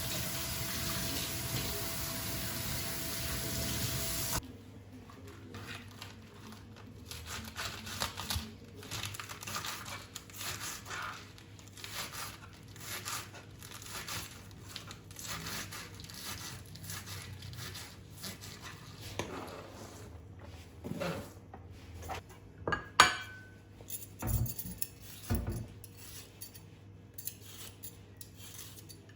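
A tap running, shut off about four seconds in, then light clinks and knocks of dishes and cutlery being handled, with one sharper clink about two-thirds of the way through.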